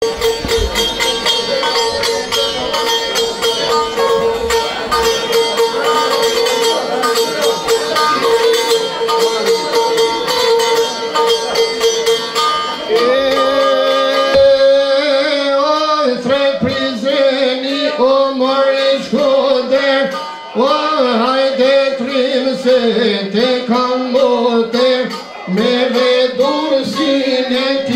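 Çifteli, the two-stringed Albanian long-necked lute, rapidly plucked in a folk melody over a steady drone note. About halfway through, a man starts singing along with it.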